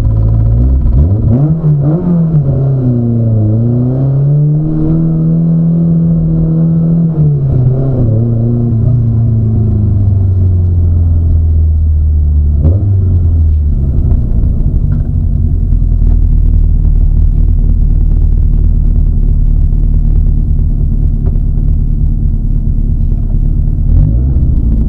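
Rally car engine heard from inside the cabin, its revs rising and falling as the car rolls along slowly, then settling about halfway through into a steady idle with a short blip of the throttle just before.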